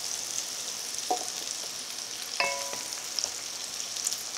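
Butter and bacon fat sizzling steadily in an enamelled cast-iron pot just after the heat is switched off, while sautéed vegetables are scooped out with a wooden spoon. Two short clinks of the spoon and pot, about a second and two and a half seconds in.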